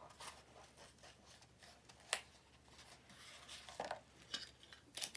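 Faint rustling of a rubber balloon being handled and stretched over a cardboard toilet-paper roll, with one sharp tick about two seconds in. Near the end come a few clicks and scrapes as clear tape is drawn from a desk tape dispenser.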